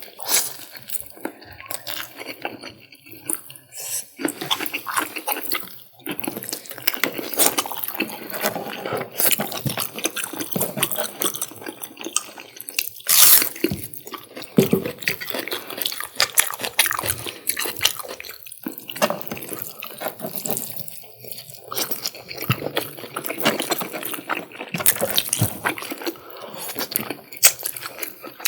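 Close-miked wet eating sounds of curry with rice: a dense, irregular run of moist smacks, squelches and chewing clicks.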